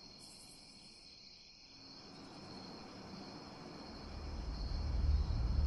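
Crickets chirping steadily, a continuous high trill. A low rumble swells in from about four seconds in.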